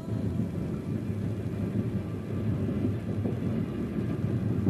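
Train running along the track, a steady low rumble heard from aboard.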